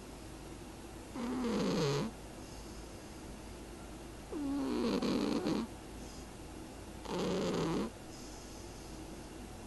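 Domestic cat snoring: three snores about three seconds apart, each lasting about a second, with a wavering pitch.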